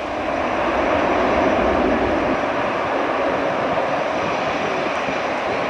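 Airbus A340-311 jet noise from its four CFM56-5C turbofan engines, heard from behind the aircraft. It is a dense, steady rushing sound that swells just after the start and then holds.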